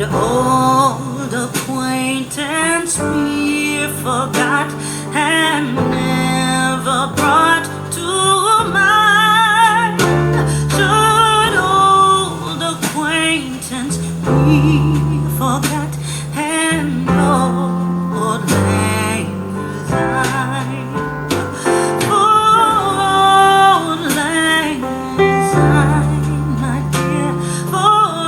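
A song with a woman singing over plucked guitar and bass, played back through Audio Phonar AP-16 bookshelf speakers driven by a tube amplifier.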